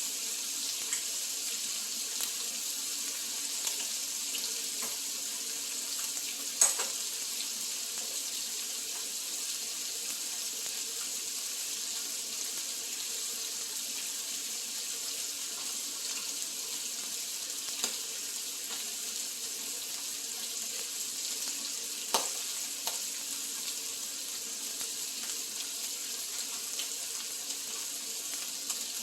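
Duck meat sizzling steadily on a hot pan, with a few sharp clicks of utensils, two of them louder, about a quarter and three quarters of the way through.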